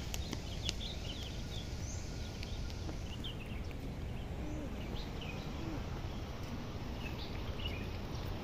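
Small birds chirping in short, scattered calls over steady low background noise.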